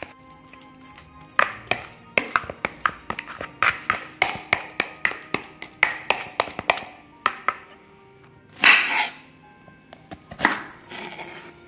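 Kitchen knife chopping on a wooden cutting board: a quick run of evenly spaced strikes, about three a second, then two longer, noisier sounds near the end.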